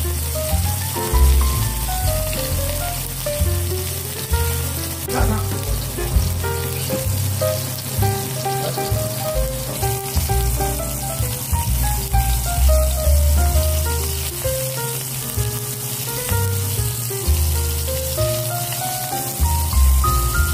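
Pieces of food sizzling as they fry in shallow oil in a pan, with a steady hiss of spitting oil. Background music with a stepping melody and a pulsing bass plays throughout.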